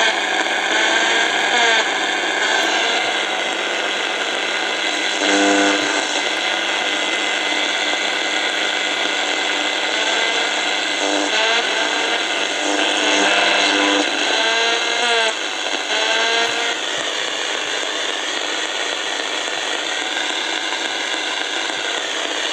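Portable radio receiver on long wave reproducing the signal of a Christmas-garland LED's built-in controller chip, which is acting as a weak radio transmitter: a loud, steady hiss with meowing tones that now and then glide up and down.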